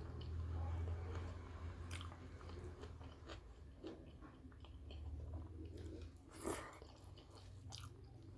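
Close-miked chewing and biting of a mouthful of rice and curry, with many small wet clicks and a louder crunchy bite about six and a half seconds in.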